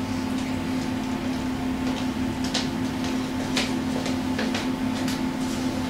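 A steady low hum, with a few soft footsteps on a wooden stage floor from about two seconds in.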